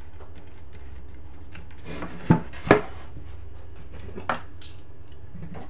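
MDF leg pieces knocking and rubbing against each other as a folding scissor leg is pivoted, with two sharp knocks close together about two and a half seconds in and a lighter one a little past four seconds, small clicks in between, over a steady low hum.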